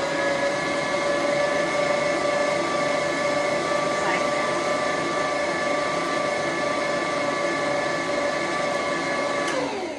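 Electric stand mixer motor running at speed with a steady whine as it beats room-temperature butter, then slowing with a falling pitch and stopping near the end.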